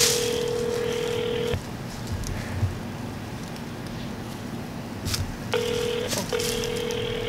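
A smartphone on speaker plays the ringback tone of an outgoing call that has not yet been answered: a steady buzzing ring lasting about two seconds at the start, a pause of about four seconds, then the ring again about five and a half seconds in.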